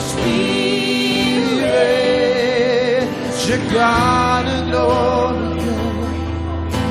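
Slow worship music: a singer holds long notes with vibrato over sustained accompaniment with steady bass.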